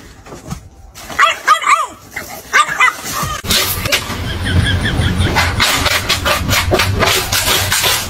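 A puppy yipping and whimpering in short, high, arching cries for about two seconds. After that comes a run of irregular scratchy rustles from a cat digging in pellet cat litter.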